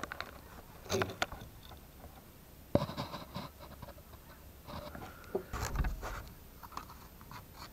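Scattered scrapes, clicks and light knocks from handling the camera close around a tin-can tealight hobo stove, with a heavier low thump about six seconds in.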